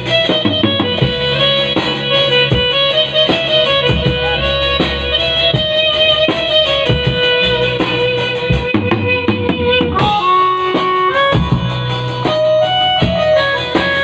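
Instrumental music with a melody of held notes over a bass line and a steady beat, with guitar and a bowed string sound.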